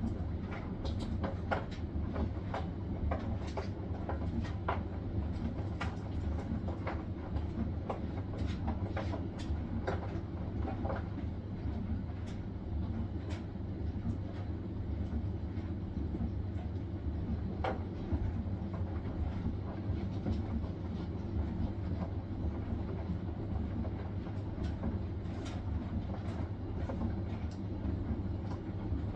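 Hisense washing machine spinning: a steady low rumble from the turning drum, with irregular light clicks and knocks over it.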